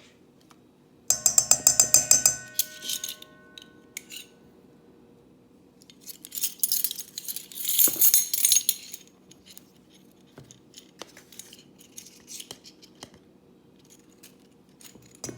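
A spoon stirring a cornstarch marinade in a bowl. About a second in comes a quick run of ringing clinks against the bowl; in the middle there is a stretch of scraping and clinking, and light scattered taps in between.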